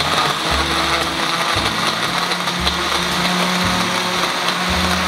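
Countertop blender motor running steadily at full speed, churning Oreo cookies and ice cream in sobia.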